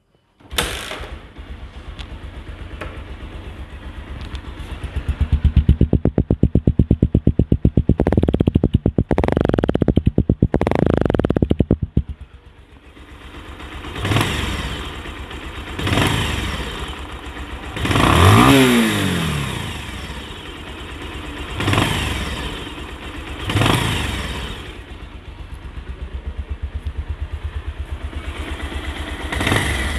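Freshly rebuilt Bajaj Pulsar single-cylinder motorcycle engine, with new piston rings and timing-chain adjuster, running. It is held at higher revs for several seconds, drops back to idle, then is blipped up and down repeatedly with the throttle. This is the engine's sound after the rebuild meant to cure its noise problem.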